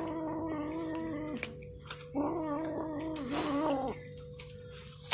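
Kitten giving two long, wavering yowls, a growling moan of the kind cats make when guarding meat, while it chews a chicken bone. The first yowl trails off about a second and a half in, and the second runs from about two seconds to near four seconds.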